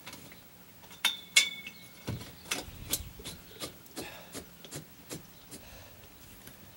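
Metal security-screen-door frame being handled and shifted against the door jamb: two sharp metallic clinks that ring briefly about a second in, then a run of light clicks and taps, a few a second.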